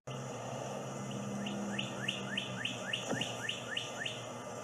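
A quick run of about a dozen high, rising chirps, roughly three a second, starting about a second in and stopping near the end, over a faint low hum.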